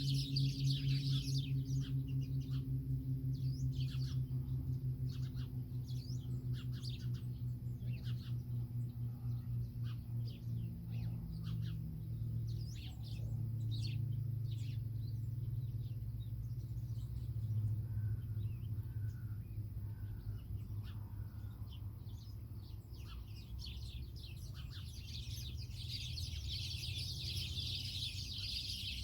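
Many small birds chirping at once in a dense chorus, over a low steady pulsing hum. The chirping thins out in the middle and swells again near the end.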